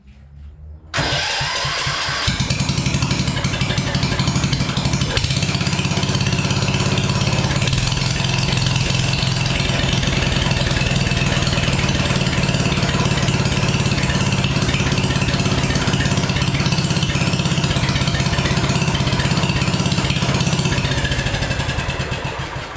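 Garden tractor's Kohler K-Series engine cranked over by its starter about a second in, catching within a second or so and then running steadily on a newly fitted carburetor, sounding pretty good. It winds down and stops near the end.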